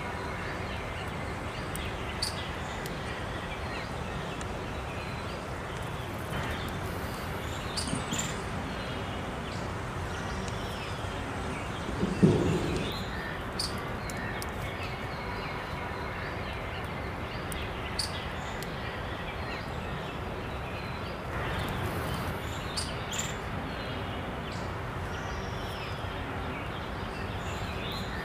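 Outdoor ambience: steady background noise with scattered faint, short high chirps, and a brief low thump about twelve seconds in.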